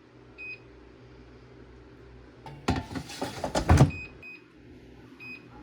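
Air fryer control-panel beeps as it is set: one short beep, then a loud clatter and rustle lasting about a second as the food goes in, then three more short beeps.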